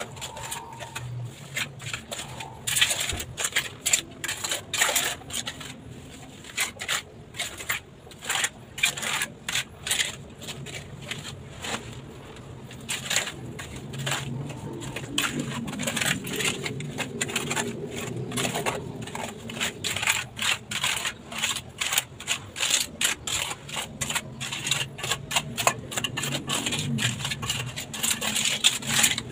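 Steel trowel scraping and clicking over broken ceramic tile pieces while cement grout is spread across a mosaic stair tread, in quick irregular strokes, several clicks a second.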